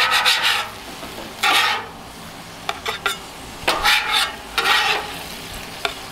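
Metal spatula scraping under smash burger patties on a hot griddle top, four short scrapes over the steady sizzle of the frying meat.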